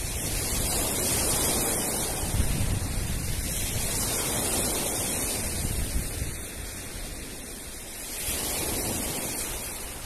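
Sea surf breaking and washing up a pebble beach, with wind buffeting the microphone. It eases off for a couple of seconds past the middle, then the next wave swells in.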